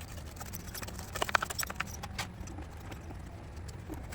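Light clicks and clinks of tools and small parts being handled while cleaning a string-trimmer engine, with a quick cluster of clicks a little over a second in, over a low steady rumble.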